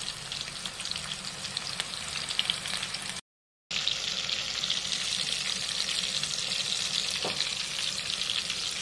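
Spice-marinated fish steaks frying in hot oil in a pan, a steady sizzle with fine crackles. It cuts out for about half a second around three seconds in.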